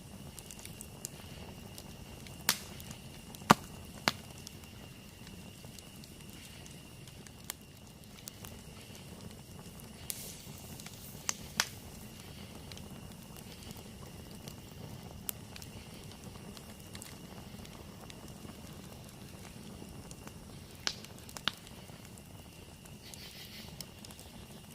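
Campfire burning: irregular sharp pops and snaps from the wood, the loudest three in the first few seconds and a few more scattered later, over a low steady rush. A steady high-pitched tone runs underneath throughout.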